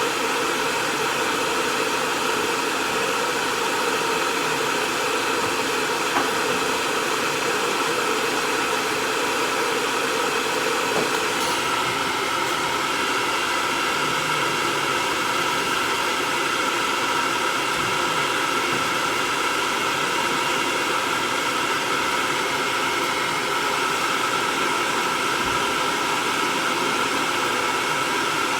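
Hair dryer running steadily, blowing air to dry a cat's fur during grooming, with a faint motor whine in the rushing air. Its sound changes slightly about a third of the way through.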